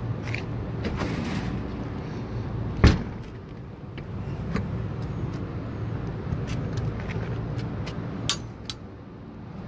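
Metal latch handles on a rooftop HVAC unit's access door being worked, with a sharp clank about three seconds in and a smaller one near the end, over a steady machinery hum.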